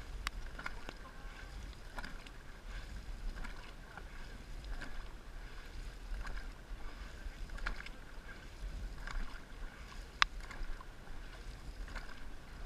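Dragon boat paddles dipping and pulling through the water in a steady stroke rhythm, a splash about every second and a half, over a low rumble of wind on the microphone.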